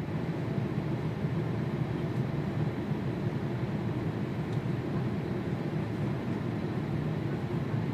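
Steady low rumble of a Boeing 747-430 airliner's jet engines.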